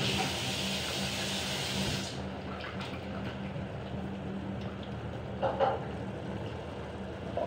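A steady hiss over a low hum, the hiss stopping abruptly about two seconds in. The hum carries on with a few light clicks, then a short clatter about halfway through as a jug of green puree is tipped over a frying pan.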